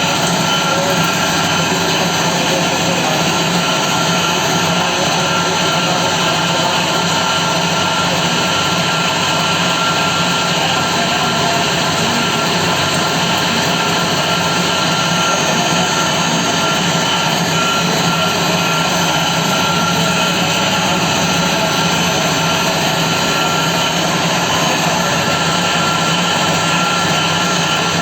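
CNC machine running with a steady, even mechanical noise and a few constant tones, unchanged throughout.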